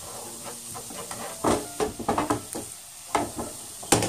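Minced garlic and chili frying in hot oil in a nonstick pan, a steady sizzle, stirred with chopsticks that click and scrape against the pan several times from about a second and a half in.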